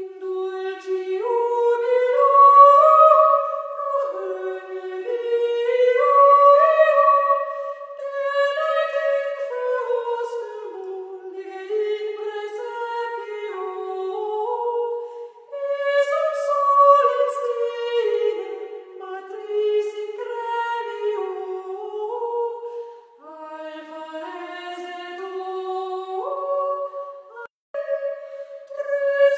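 A high solo voice sings a slow, wordless melody with no accompaniment, its pitch stepping up and down in phrases with short breaths between them.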